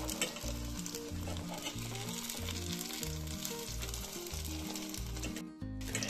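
Breaded fish-and-rice cutlets sizzling and crackling in hot sunflower oil in a frying pan as they are turned over with a metal slotted spatula. The sizzle cuts out briefly near the end. Background music with low notes plays underneath.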